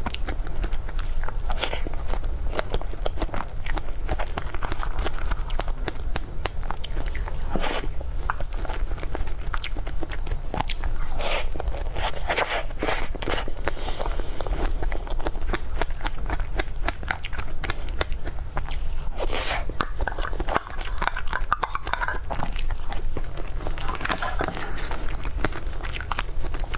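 Close-up eating sounds: biting and chewing with crunching and many small wet crackles, over a steady low hum.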